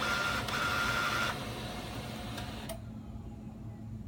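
HP LaserJet M225dw laser printer running its internal mechanism as it comes up after a successful start, with a steady whine for about the first second before it drops to a quieter hum. About two-thirds of the way through, the remaining hiss cuts off. The printer has got past its boot loop now that the fax circuit board is disconnected.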